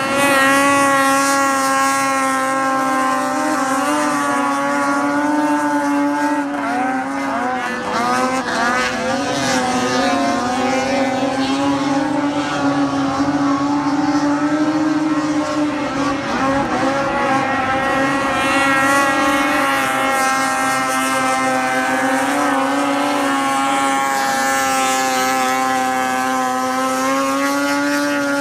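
Racing snowmobile engines at full throttle skimming across open water: a steady, high-pitched engine drone that rises and falls in pitch, with quick pitch sweeps as sleds pass by.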